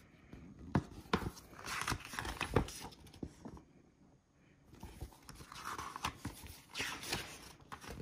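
Pages of a printed paper catalogue being turned and handled: two bouts of paper rustling, the first about a second and a half in and the second about five seconds in, with a few soft knocks.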